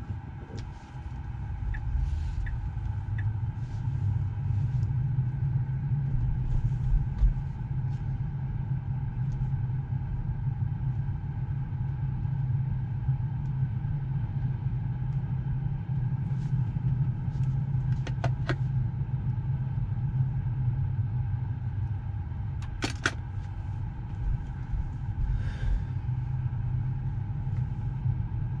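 Steady low rumble with a faint steady hum, typical of a car cabin, broken by a few sharp clicks.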